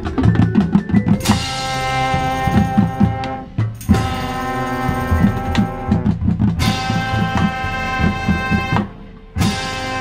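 Marching band playing: drumline strokes, then from about a second in the full band of brass and woodwinds holding loud chords over a steady drum beat. The band breaks off briefly twice, a little past three seconds and near nine seconds, and comes back in with a hit each time.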